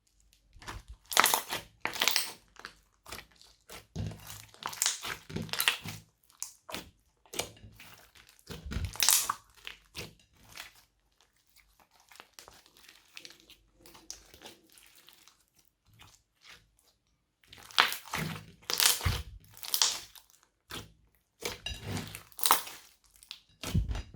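Glossy slime being squeezed and worked by hand with mixed-in add-ins, giving bursts of crunchy, crackling squelches, quieter for a few seconds about halfway through.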